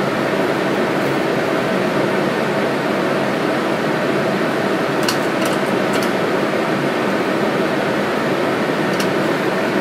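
A fan running steadily, with a few faint light clicks about halfway through and again near the end as plastic petri dishes and a metal scalpel are handled.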